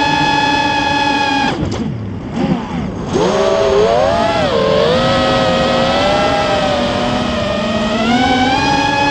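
Spedix Black Knight 210 racing quadcopter's brushless motors and propellers whining in flight. The pitch drops sharply as the throttle is chopped about a second and a half in, then climbs back and wavers as the throttle is punched. It rises again near the end.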